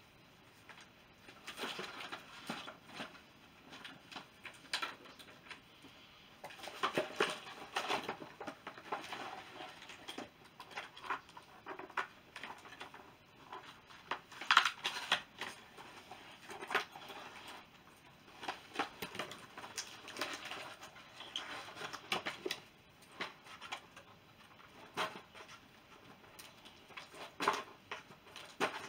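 Hands working at a plastic action-figure box and a stuck zip tie: scattered, irregular clicks, taps and rustles of plastic, with a few louder snaps.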